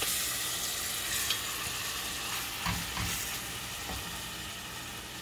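Marinated boneless chicken frying in melted butter in a pan, a steady sizzle, with a few light knocks as it is stirred against the pan.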